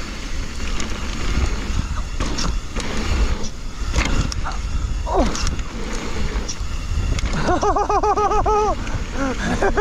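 Mountain bike riding down a dirt trail: steady wind rumble on the microphone, tyres on dirt and the bike rattling over bumps. Near the end there is a brief warbling squeal.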